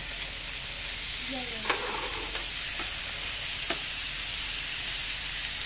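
Thinly sliced beef and onions sizzling steadily in a hot grill pan, with a few light clicks as chopsticks and tongs turn the meat against the pan.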